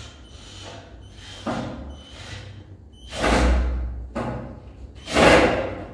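Knocks and thuds of a white shelf board being pushed into a wooden stud frame overhead, about one a second, each ringing briefly. The two loudest come about three and five seconds in.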